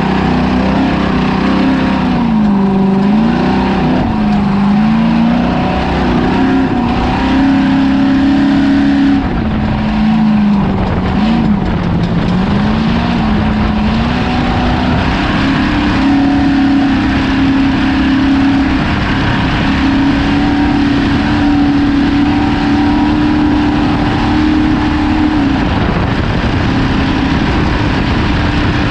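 Ford Ranger desert race truck's engine running hard under a constant rush of noise. Its pitch dips and climbs back twice in the first half as the throttle is eased and reapplied, then holds a steady higher pitch from about halfway on.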